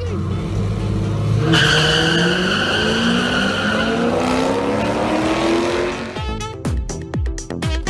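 Drag-race launch: car engines running at the line, then tyre squeal about a second and a half in as the cars leave, with the engine pitch climbing steadily as they accelerate down the strip.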